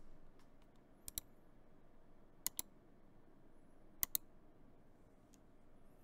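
Three single keystrokes on a gasket-mounted custom mechanical keyboard with an aluminium plate and lubed, filmed L&F Lavender switches. Each is a quick pair of sharp clicks, and they come about a second and a half apart.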